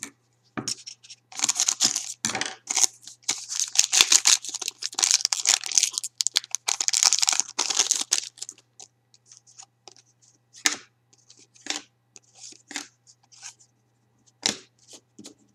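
Foil wrapper of a Panini Titanium hockey card pack being torn open and crinkled for about seven seconds, followed by scattered short rustles and clicks as the cards are slid out and handled.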